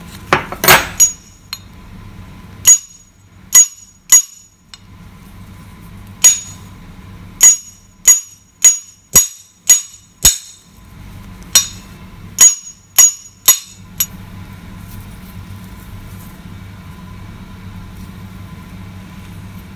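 Steel combination spanner knocking on a rusted, seized nut and bolt: about twenty sharp metallic strikes with a bright ring, in irregular groups, stopping about fourteen seconds in. The knocks are meant to jar the loosened rust free from a bolt that is still stuck.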